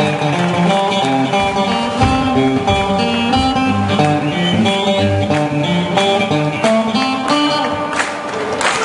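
Live electric blues band playing an instrumental passage: electric guitar over bass guitar and a drum kit, with a steady beat.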